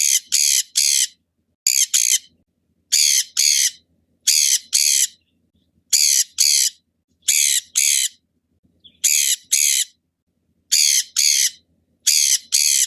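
A parrot squawking harshly: short, high-pitched screeches, mostly in pairs (three at the start), a new pair every second and a half or so.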